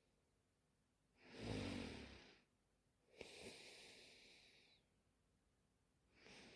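A sleeping woman snoring: a rough snore with a low rumble about a second in, then a longer, breathier one starting with a click around three seconds in, and the next breath beginning near the end.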